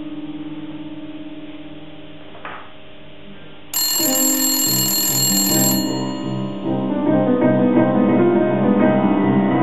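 Grand piano: a held chord dies away, then about four seconds in, louder playing begins abruptly with quick repeated high notes and trills over an evenly pulsing bass.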